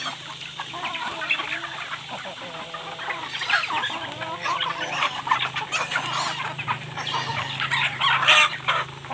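A flock of hens and roosters clucking while feeding on scattered grain, with many short calls overlapping.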